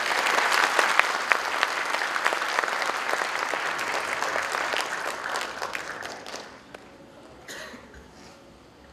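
Audience applauding with many hand claps at the end of a speech, fading away about six or seven seconds in.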